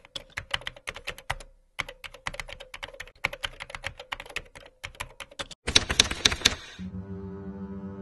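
Rapid typing: sharp keystrokes in quick succession, with a short pause about a second and a half in and a louder, denser flurry of strikes near the end. A low, sustained horn-like note then comes in.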